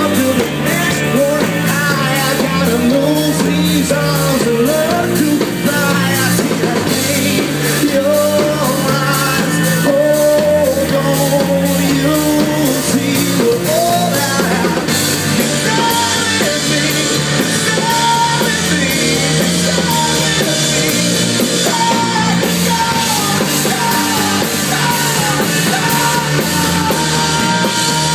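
Live rock band playing a song: electric guitars, bass and drum kit, with a male lead singer. About halfway through the cymbals grow louder, and near the end the singer holds one long note.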